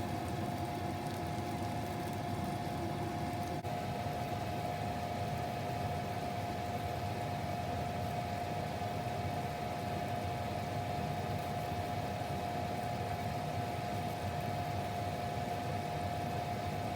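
A pan of tomato and minced-clam sauce cooking on the stove, under a steady hum with one constant tone. There is a faint click about three and a half seconds in.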